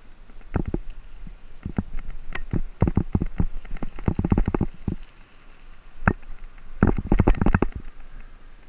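A 2007 Caloi 10 road bicycle rattling and clattering as it rides over a bumpy, rutted dirt and grass track, irregular bursts of sharp knocks over a low rumble.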